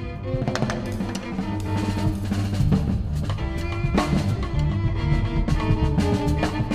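Live ensemble music: a drum kit playing busily under double bass and bowed strings holding notes.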